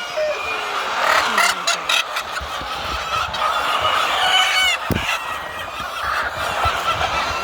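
A crowded flock of laying hens clucking and squawking, many calls overlapping, with a few sharp clicks about one to two seconds in.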